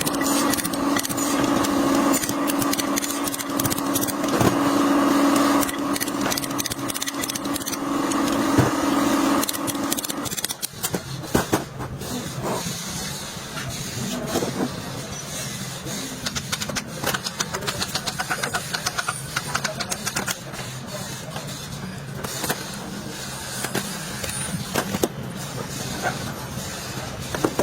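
A steady mechanical hum that changes to a lower, quieter hum about ten seconds in, with scattered clicks and knocks over it.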